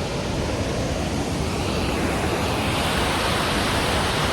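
Waterfall and stream water rushing, a steady dense noise that grows gradually louder and brighter from about two seconds in.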